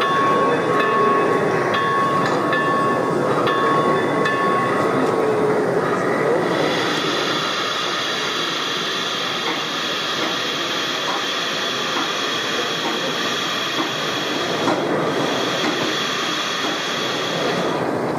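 Train sounds from a model railway layout over a steady background hubbub. For the first few seconds there are steady tones that cut in and out, then a sustained high hiss starts about six seconds in and stops shortly before the end.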